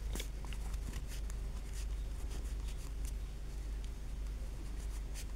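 A pen writing on paper, with faint, short scratching strokes, over a low steady hum.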